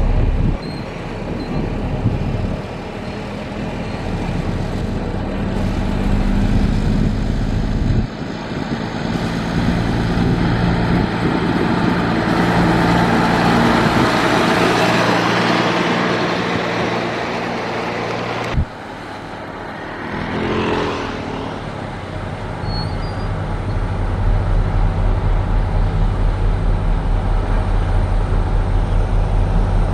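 Heavy diesel construction machinery running. The engine note changes abruptly a few times, a short hiss comes about two-thirds of the way through, and in the last few seconds a regular throbbing engine beat sets in.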